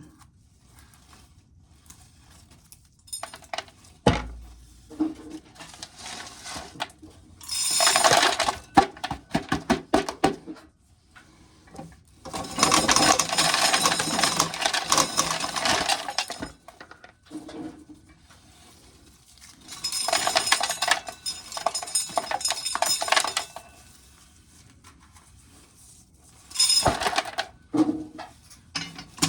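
Dried corn being shelled off the cob: kernels rattling and clinking down into a container in four bursts of a few seconds each, with scattered single kernel clicks in between.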